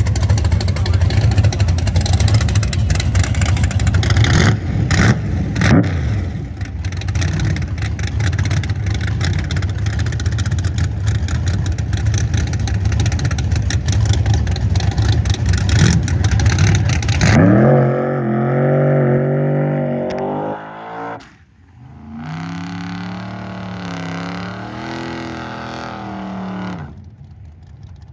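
Drag-racing car engine at full throttle: a long stretch of loud, rough, rumbling noise, then a clearer engine note that rises, breaks off briefly, returns steady for several seconds and fades near the end.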